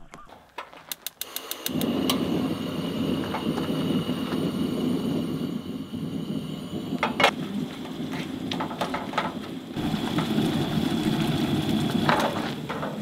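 Gas camp stove being lit: a rapid run of igniter clicks, then the burner catches about two seconds in and runs with a steady low roar. A few sharp clacks of cookware sound over it later on.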